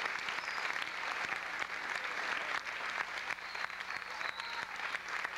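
Theatre audience applauding: dense, steady clapping for the dancers' curtain-call bows.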